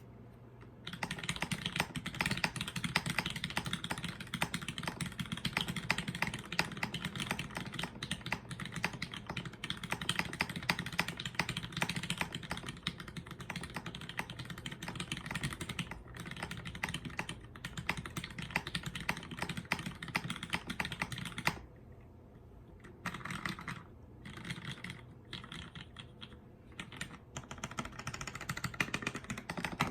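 Typing on a custom mechanical keyboard with retooled Cherry MX Black linear switches lubed with Krytox 205g0, mounted on an aluminum plate and fitted with GMK keycaps. Steady fast typing starts about a second in, then breaks into short bursts of keystrokes with pauses for the last third.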